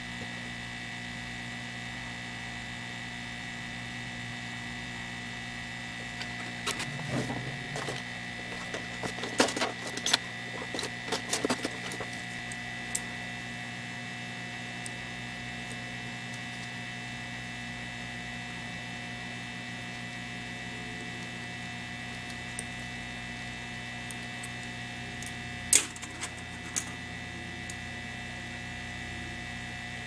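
Hot-air heat gun running steadily with a hum and a high whine while it heats the solder joints of a laptop DC power jack to desolder it. Light clicks and taps of hand tools at the board come in a cluster from about six to twelve seconds in, with one sharper click near the end.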